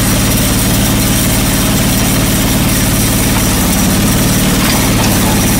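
John Deere 445 garden tractor's liquid-cooled V-twin engine idling steadily.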